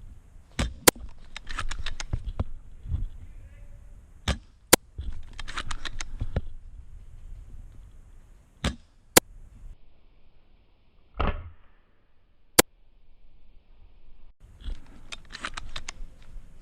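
Spring-powered Action Army AAC T10 airsoft sniper rifle firing four sharp, single cracks a few seconds apart, with rattling and rustling clicks in between.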